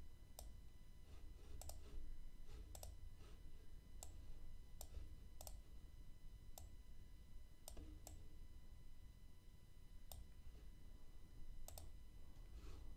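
Faint computer mouse clicks, about a dozen spaced irregularly a second or so apart, over a steady low hum.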